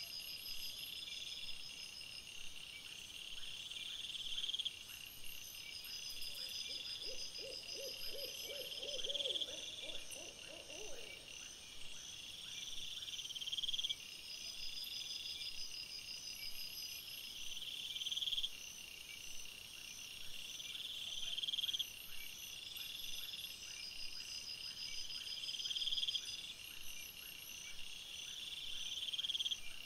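Night chorus of crickets: high trilling in repeated phrases of a few seconds, each swelling louder and then cutting off abruptly. From about six to eleven seconds in, a lower call pulsing about four times a second sounds beneath it.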